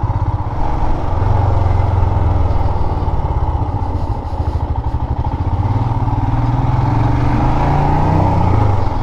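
Royal Enfield Himalayan's 411 cc single-cylinder engine running steadily under way, heard from the bike while riding, its note rising a little near the end.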